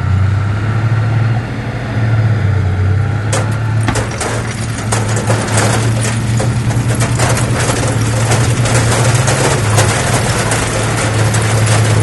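Heavy diesel engine of earthmoving machinery running steadily with a low hum. About three seconds in, a dense crackling and clattering starts and continues alongside it.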